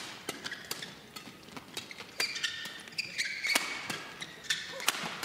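Badminton rally: rackets striking the shuttlecock in sharp, quick hits back and forth, with shoes squeaking on the court floor as the players move.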